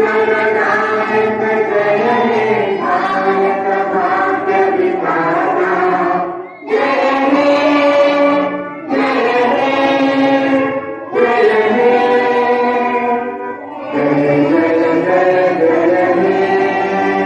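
A large group of schoolchildren singing a prayer together in unison, in phrases of a few seconds with short breaks between them.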